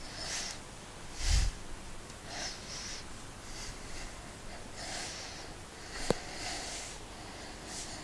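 Board duster wiping a classroom board in short scrubbing strokes, each a brief hiss, with a dull thump about a second in and a sharp click around six seconds.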